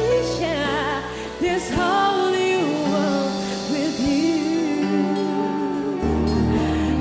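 A pop song with a solo voice singing a melody, with vibrato, over instrumental accompaniment. The deep bass drops out about a second and a half in and comes back near the end.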